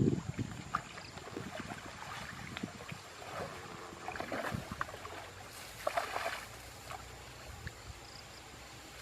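Irregular splashing and sloshing of water, with a few sharp little knocks; the largest splashes come about four and six seconds in.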